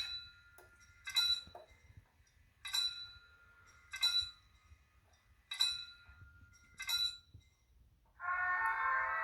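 Sound module of an H0-scale model GDR level crossing ringing its warning bell: six single rings, about one every second and a half, each left to ring out. Near the end a diesel locomotive horn from the BR 114 model's sound decoder sounds for about a second and a half.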